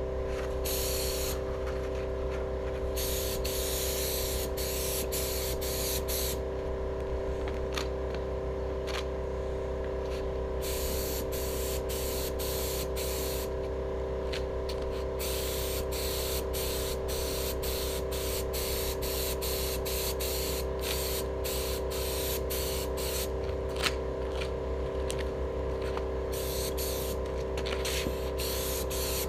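HVLP spray gun hissing in repeated bursts as its trigger is pulled and released, spraying paint onto steel wheels: longer passes early on, then many short bursts. A steady hum runs underneath.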